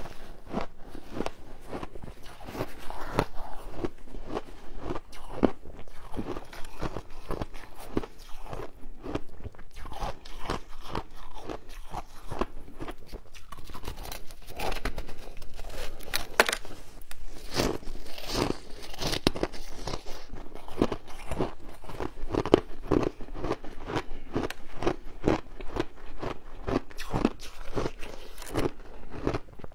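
Close-miked crunching and chewing of compressed coloured shaved ice, a dense run of crisp crackling crunches as pieces are bitten off the block and chewed.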